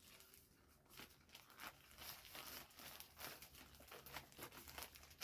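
Faint crinkling and rustling of gift packaging being handled, in irregular bursts from about a second in.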